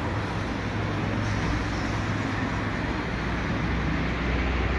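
Steady outdoor street noise: an even low rumble and hiss, like distant road traffic, with no separate events standing out.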